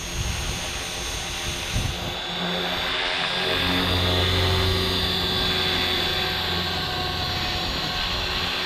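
Walkera V450D03 electric RC helicopter in flight: the steady high whine of its electric motor over the hum of the spinning rotor blades. The tone shifts and grows a little louder about three seconds in, then holds steady.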